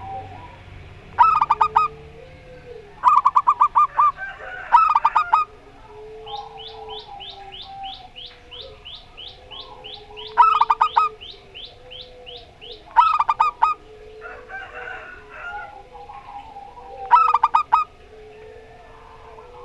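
Zebra doves (perkutut) calling back and forth: six short bursts of rapid staccato cooing notes. Between them, another bird gives a faint fast run of high notes for a few seconds, and soft lower calls go on underneath.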